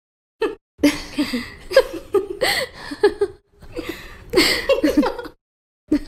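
Several women laughing together with bits of chatter, starting about half a second in and breaking off briefly near the end.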